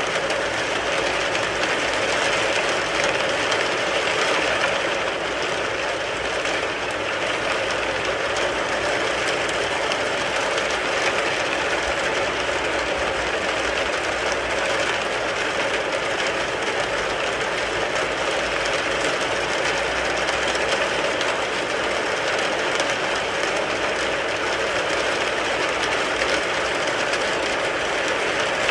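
Steady, heavy rain falling on a car, a dense, even patter on the body and glass with no breaks.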